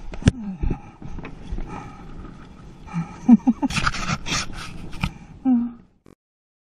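Mountain bike clattering and rattling down a rough dirt downhill track, with tyre and wind noise on the camera. There are brief vocal sounds from a rider a few seconds in, and the audio cuts off suddenly near the end.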